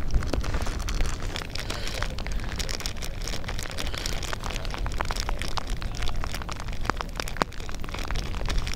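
Rain falling close to the microphone: many sharp, irregular taps of drops striking nearby, over a steady low rumble of wind buffeting the microphone.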